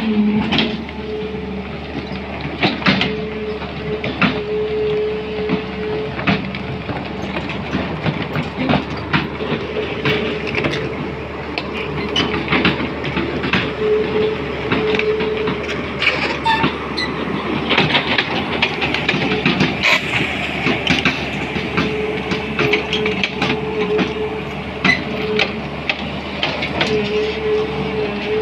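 Crawler excavator (SANY) working: its diesel engine runs steadily under load, with a whine that comes and goes, while the steel bucket scrapes and knocks on gravel and stones with many short clanks.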